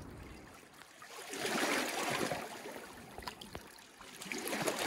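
Small waves washing in over the rocky lakeshore, swelling up twice, about a second in and again near the end.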